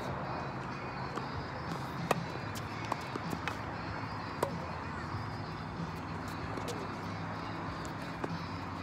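Tennis rally: sharp pops of the ball struck by rackets and bouncing on the hard court, several of them spaced about a second apart, over a steady low hum.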